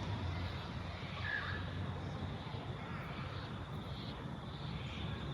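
Steady low rumble of distant road traffic, with a short bird call about a second in.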